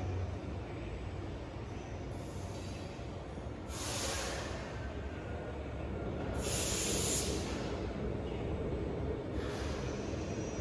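Portable line boring machine running: a steady low rumble with a few brief hissing bursts, the loudest about six and a half seconds in.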